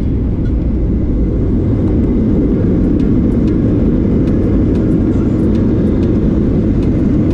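Jet airliner cabin noise while rolling fast along the runway: a loud, steady rumble of the turbofan engines and wheels heard through the fuselage, with faint light ticks and rattles.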